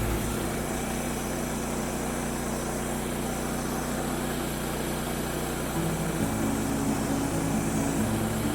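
Small gasoline engine of a Woodland Mills HM126 portable sawmill running steadily. Its note changes about six seconds in.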